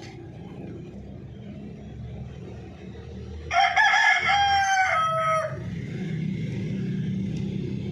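A rooster crowing once, a cock-a-doodle-doo of about two seconds in a few stepped parts that fall in pitch, about halfway through. A steady low rumble sits underneath.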